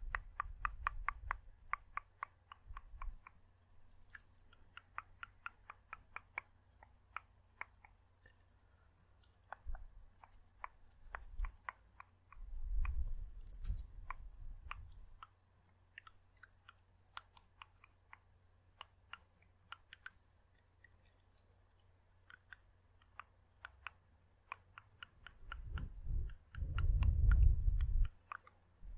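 Dry ASMR mouth sounds close to the microphone: sharp tongue and mouth clicks, in quick runs of several a second at first and more scattered later. Low, muffled rumbles hit the microphone a little before halfway and again near the end, the loudest of them near the end.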